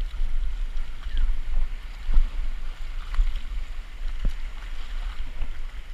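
Wind buffeting the microphone in an uneven low rumble, over faint water sounds, with a few short knocks about two seconds and four seconds in.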